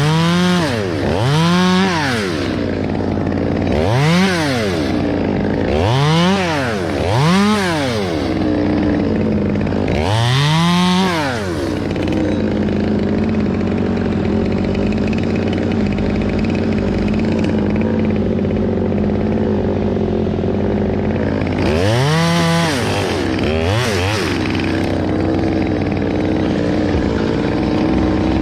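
Chainsaw revving up and down in quick bursts, about six times in the first twelve seconds and twice more near the end. In between, a steady lower engine drone runs for about ten seconds.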